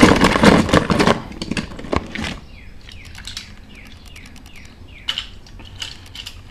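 Hands rummaging through a box of die-cast toy cars, a loud clattering rattle of small metal and plastic cars for about two seconds, then quieter handling with a few sharp clicks. A run of faint high chirps comes through in the middle.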